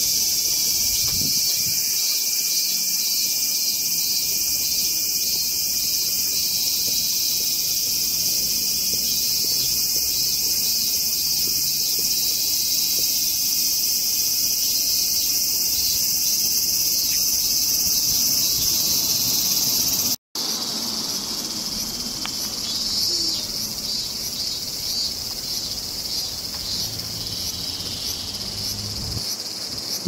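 A chorus of cicadas buzzing steadily at a high pitch. After a brief cut about two-thirds of the way in, the buzz comes back with a quick pulsing rhythm.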